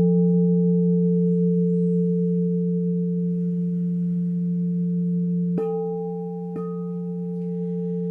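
Singing bowls ringing with a steady sustained hum of two strong low tones and fainter overtones above. Near the end a bowl is struck twice, about a second apart, renewing the ring.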